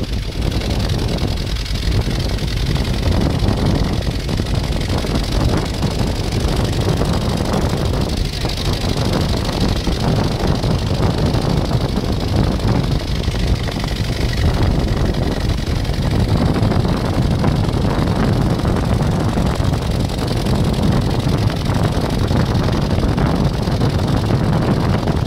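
A moving vehicle's engine and road noise, with wind rushing over the phone's microphone in a steady, loud roar.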